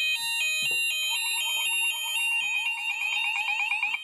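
Several electronic fire alarm sounders going off together. One plays an alternating two-tone; another with a fast sweeping warble joins about a second in and cuts off near the end. The system is in alarm because an Apollo Orbis optical smoke detector has just been set off in a test.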